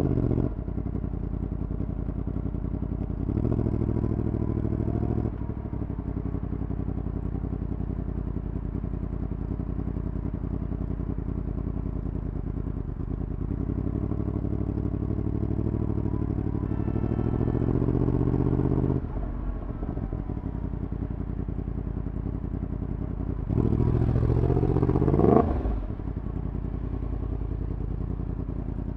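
Yamaha MT-10's crossplane inline-four running through a decat full exhaust system while riding. The engine pulls harder three times: briefly about four seconds in, then a longer pull building up to about nineteen seconds, then a rev with rising pitch near twenty-four seconds that cuts off sharply. Between these it runs low and steady.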